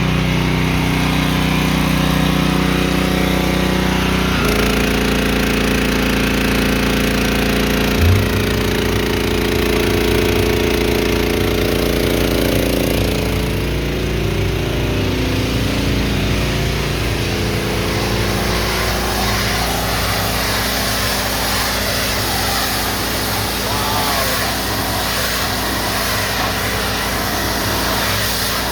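Kohler gas engine of a 4000 psi hot-water pressure washer running steadily. Its note shifts about four seconds in, and a short thump about eight seconds in is followed by a faster low pulsing.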